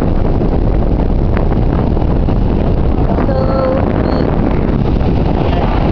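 Strong wind buffeting the microphone, a loud, steady low rumble that covers everything else; a faint voice comes through briefly about halfway through.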